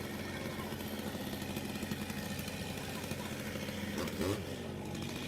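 A machine's engine running steadily with a low, even drone, with a brief swoop in pitch about four seconds in.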